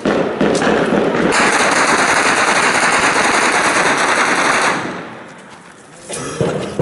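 Automatic gunfire close by: a few shots, then a long unbroken burst of about three and a half seconds that cuts off sharply, and a few more shots near the end.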